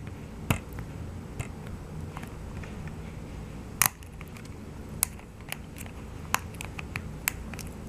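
Fingernails picking and scratching at the adhesive security strip on a plastic Blu-ray case: a scattering of small, irregular clicks and ticks.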